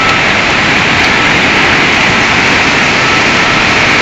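Loud, steady rushing roar of water as floodwater pours into a warehouse.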